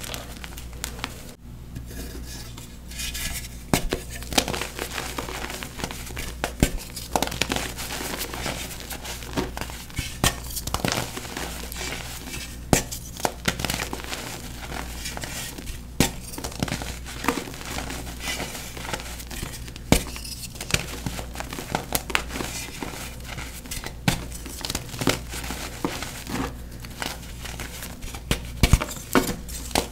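Gym chalk being crushed, crumbling with a dense run of crackles and sharp snaps.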